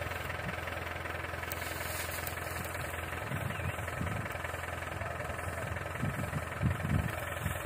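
Tractor diesel engine idling steadily, with a couple of dull low thumps about seven seconds in.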